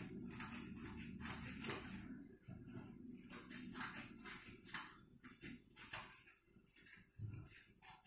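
Scissors snipping through a paper plate: a string of irregular, crisp cuts with the crackle of the stiff paper.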